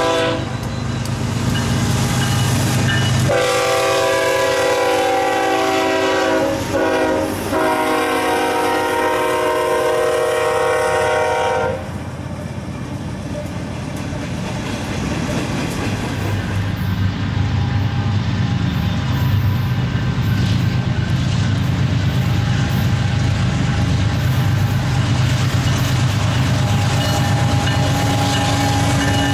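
Diesel freight locomotive air horn: a brief blast at the start, then a long blast that wavers in pitch midway and cuts off suddenly. After it, the steady low rumble of locomotives and freight cars rolling past.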